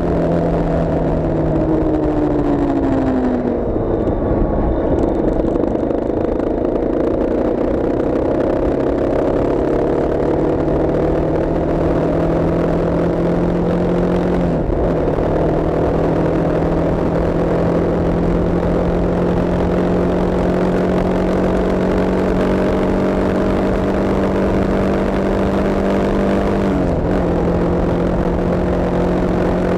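Vehicle engine running under way. Its pitch sinks over the first few seconds, then climbs slowly as it accelerates, with brief sudden dips like gear changes about halfway through and near the end.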